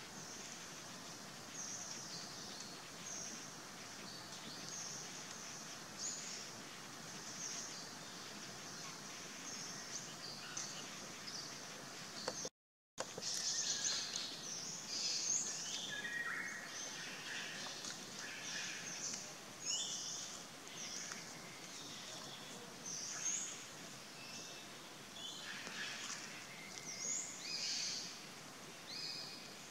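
Outdoor tree-canopy ambience: many short, high bird chirps over a steady hiss. The sound drops out for a moment about twelve seconds in, and the chirping is busier afterwards.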